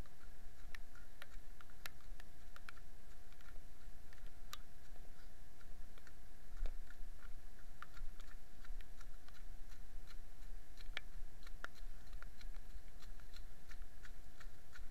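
Irregular sharp ticks and clicks on a small camera's body as it is carried at a run, over a low rumble of handling and movement, with a faint steady electronic whine from the camera.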